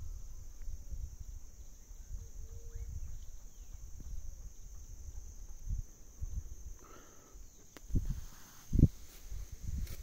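Outdoor countryside ambience: a steady high insect drone over a low rumble, with a few faint bird chirps. Several dull thumps come near the end.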